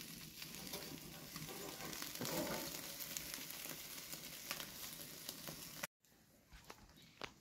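Fish wrapped in aluminium foil sizzling and frying in its own fat on a fast-burning wood fire, with many small crackles from the fire. The sound cuts off abruptly about six seconds in, leaving only a few faint clicks.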